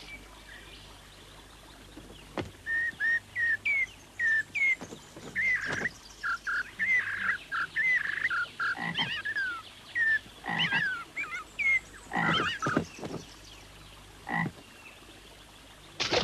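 Animal calls: many short, high chirps in quick succession, some bending up or down in pitch, with a few sharp clicks among them.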